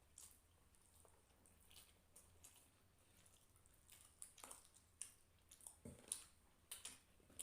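Faint chewing and wet mouth smacks of a person eating rice and hilsa fish curry, a scattering of short soft clicks that comes more often in the second half.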